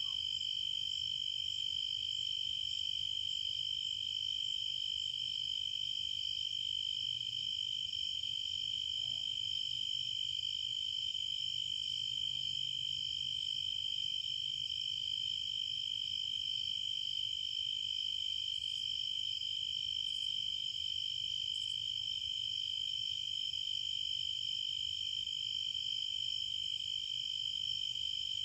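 Crickets trilling in a steady, continuous high chorus with a fast, even pulse.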